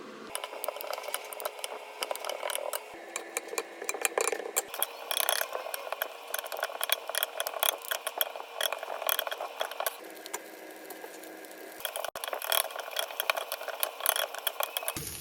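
Seaweed stems stir-frying in oil in a pan: a dense, irregular crackle with the clatter of a utensil stirring them.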